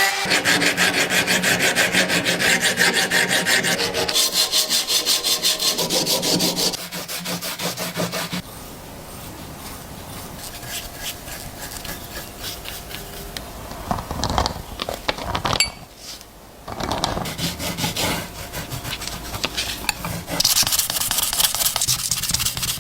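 Rapid back-and-forth rubbing and scraping strokes of hand abrasive work on a pocket knife during rust removal. The strokes are loud for the first eight seconds or so, then quieter, growing louder again near the end.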